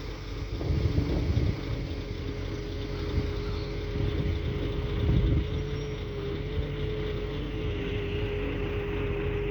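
Excavator at work, running steadily: a constant whine over a low, uneven rumble.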